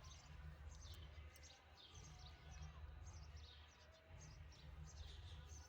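Faint birds chirping: many short, high chirps, each falling in pitch, repeating several times a second, over a low steady rumble.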